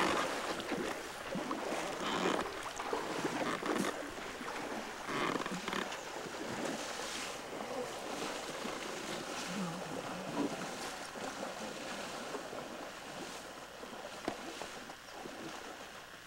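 An elephant wading through a shallow river: irregular splashes and sloshing water around its legs, louder at first and fading toward the end.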